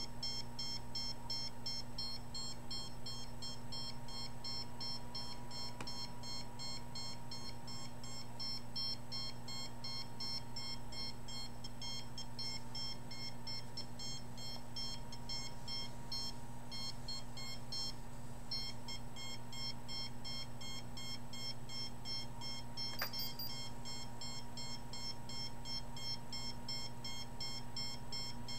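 Handheld electromagnetic radiation meter sounding its alarm, a rapid, evenly repeating beep that breaks off briefly about two-thirds of the way through, over a steady low electrical hum.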